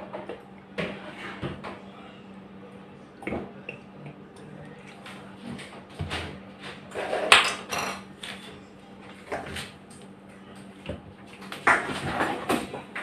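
Scattered clinks and knocks of kitchen bottles and containers being handled around a steel wok, with a louder clatter about seven seconds in and again near the end, over a steady low hum.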